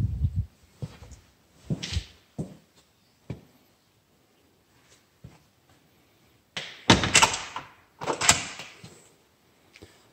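A door being worked by hand: a few light knocks and clicks of the handle and latch, then two louder clunks and rattles of the door swinging and shutting about seven and eight seconds in.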